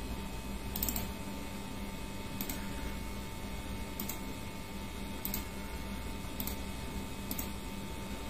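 Steady low electrical hum with faint short ticks at uneven spacing, roughly one every second or so.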